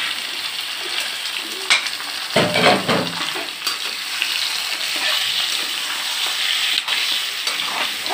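Raw meat pieces sizzling in hot oil with browned onions in a steel karahi, stirred with a metal slotted spoon that scrapes and clicks against the pan. There is a louder knock about two and a half seconds in.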